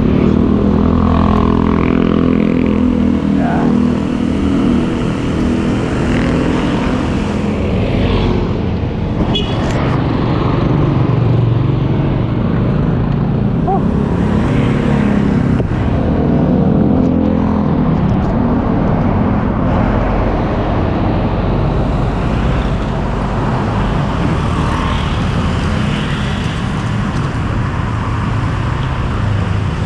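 Street traffic close by: small motorcycle engines and a motorcycle tricycle running as they pass, with cars going by, a steady loud rumble that swells as each vehicle passes.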